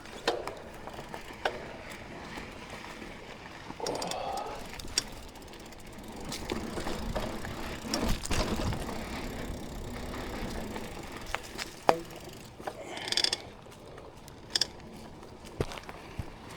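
Mountain bike rolling over trail, its rear freehub ratchet clicking while coasting, with scattered knocks and rattles from the bike.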